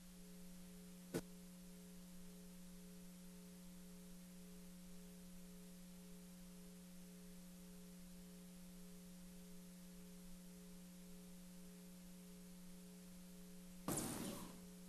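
Near silence with a steady low electrical hum, as from a sound system left on. There is a single sharp click about a second in and a short noise near the end.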